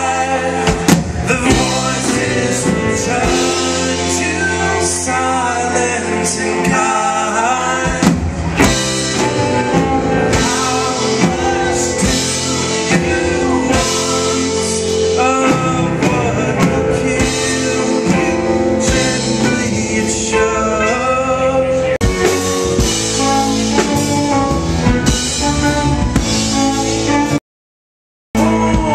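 Live band playing a rock song: electric guitars, drum kit, keyboard and cello, with a man singing. The sound cuts out completely for about a second near the end.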